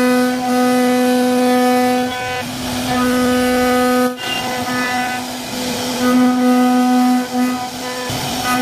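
CNC wood-carving router running: a steady pitched whine with a ladder of overtones, dipping or breaking off briefly a few times as it carves.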